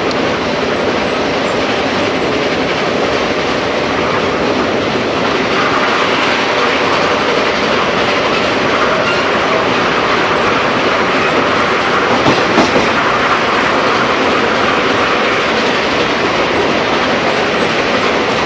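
Passenger train running at speed, heard from inside a coach vestibule: a loud, steady rumble and rattle of wheels on the track, with a couple of brief knocks about twelve seconds in.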